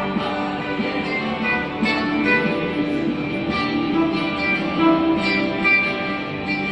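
Ukulele played with a pick, carrying a solo melody of sustained notes over a backing track, amplified through a Roland Mobile AC amplifier.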